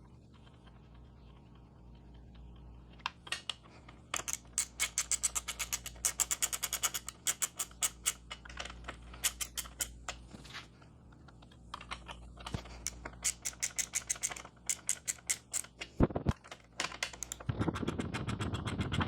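Ratchet wrench with an 8mm socket clicking in quick runs as the bolts holding the rear light assembly are turned down, with short pauses between runs. Near the end there is a louder scraping, handling noise.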